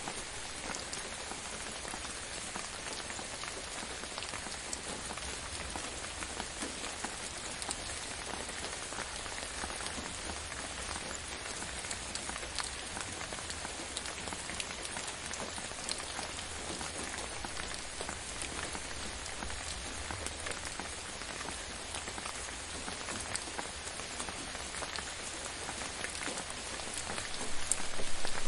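Steady gentle rain falling on a surface, a dense even hiss dotted with many separate drop ticks, with a low rumble underneath; it swells much louder in the last second or two.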